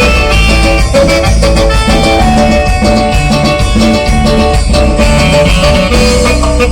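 Band playing a chilena, Mexican Costa Chica dance music, with a steady beat under a running melody.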